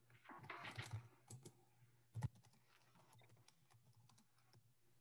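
Faint typing on a computer keyboard: scattered key clicks, with one louder click a little over two seconds in, over a faint low hum.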